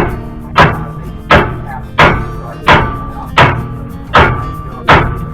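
A hammer pounding on steel front-suspension parts to knock a stuck joint loose: a steady run of about eight hard blows, one every 0.7 seconds or so, each ringing on metallically.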